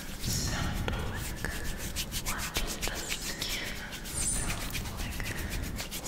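Close-miked skin sounds: hands rubbing and fingers fluttering right at a foam-covered microphone, with a run of fast ticks in the first half.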